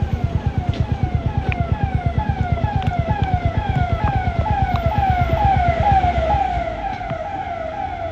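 An electronic siren-like tone sweeps down in pitch over and over, about two to three times a second. Beneath it, a Royal Enfield Hunter 350's 349 cc single-cylinder engine thumps at idle, then dies away about six seconds in.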